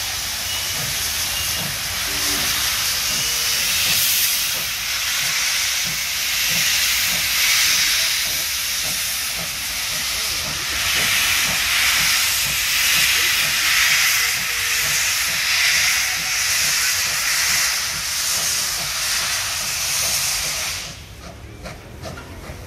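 NSW C38-class streamlined steam locomotive 3801 working slowly with its cylinder drain cocks open: a loud, steady hiss of escaping steam over slow, low exhaust beats. The hiss cuts off sharply near the end.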